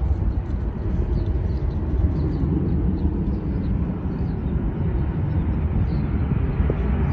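Wind buffeting the microphone over the distant rumble of jet airliners at the airport, with the jet noise growing slightly near the end.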